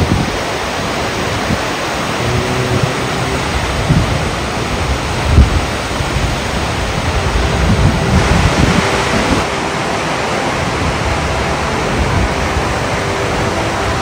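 Multnomah Falls heard close up: a steady rush of water pouring into the pool below, with a few low thumps, the strongest about five seconds in.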